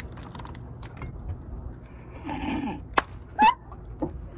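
Brief wordless vocal sounds from a person: a short low sound about two seconds in, then a quick rising sound about three and a half seconds in, among a few light clicks.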